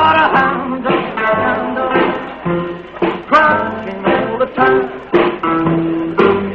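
Live 1950s rock and roll: a male voice singing over electric guitar and drums keeping a steady beat.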